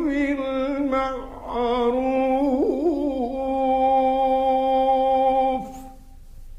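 A male Quran reciter chanting in the drawn-out, melodic mujawwad style. He holds and ornaments the words "fa-l-ya'kul bil-ma'ruf" in long sustained notes that stop about five and a half seconds in.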